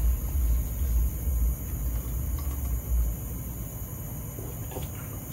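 A low, uneven rumble of background noise, with no speech.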